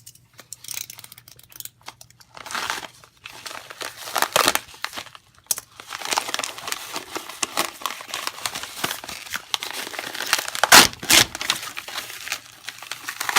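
A mailed package's wrapping being torn open and crumpled by hand: irregular crinkling and tearing, with sharp rips about four and a half seconds in and a louder one late on.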